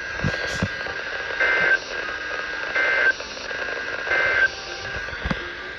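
Three short bursts of Emergency Alert System end-of-message data tones, the warbling digital 'NNNN' code, about a second and a half apart, marking the end of the severe thunderstorm warning. They come over a radio receiver with a steady static hiss and a few low pops.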